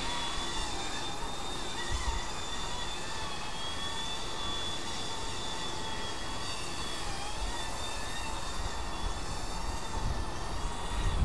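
Eachine E120 micro RC helicopter flying: a steady high whine from its motors and spinning rotors, the pitch wavering a little as it manoeuvres.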